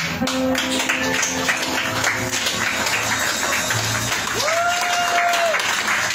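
Live band's last notes fading out as the audience applauds, with a long whistle from the crowd about four and a half seconds in.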